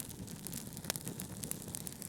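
Fireplace fire crackling over a steady low rumble of brown noise, with one sharper pop a little under a second in.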